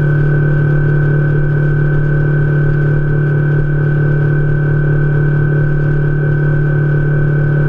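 A fishing boat's outboard motor running at a steady cruising speed: a constant drone with a thin, steady high whine above it.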